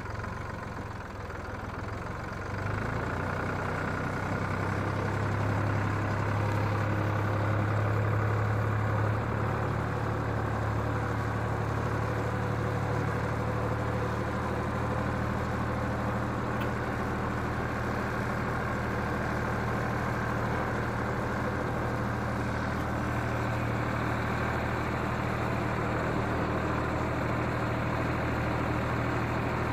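Red four-wheel-drive tractor's diesel engine running steadily while driving along a dirt forest track, growing louder about three seconds in.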